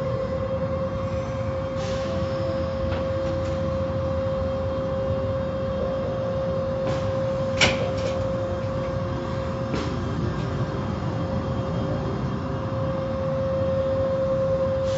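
Automatic car wash machinery heard from inside the car: a steady rush of water and running equipment with a constant hum, and scattered knocks and clicks, the sharpest a little past halfway.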